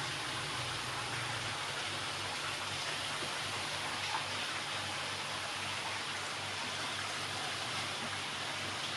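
Steady rushing water noise, like water running or pouring, over a low hum, with one small tick about four seconds in.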